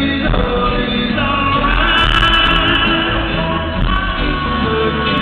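A live band playing a song with a sung lead vocal, heard from the audience in a large hall. The recording is dull-toned, missing its high end.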